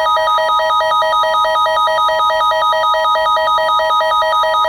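Emergency Alert System attention tones: a steady electronic tone with a second tone over it that switches quickly back and forth between a low and a high pitch. The tones signal the start of an alert.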